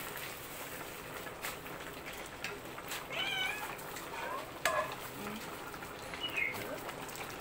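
A metal ladle stirring a large pot of simmering curry, with scattered clicks and knocks against the pot. Two short mewing animal calls come through, around three and six seconds in.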